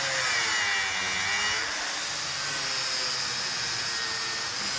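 Electric angle grinder running with its disc against a metal outboard propeller blade, grinding the blade down. The motor's pitch sags under the load for the first couple of seconds, then picks up again.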